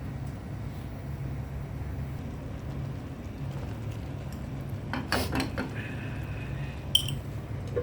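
Cooking utensils clattering against a pan, with a cluster of knocks about five seconds in and a sharp metallic clink near the end, over a steady low hum.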